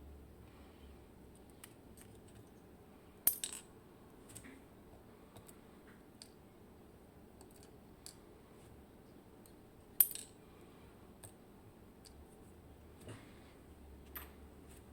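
Small metal driver pins from a disassembled IKON SK6 lock cylinder clinking onto a hard surface: two sharp clicks, about three seconds in and about ten seconds in, with fainter ticks between and after.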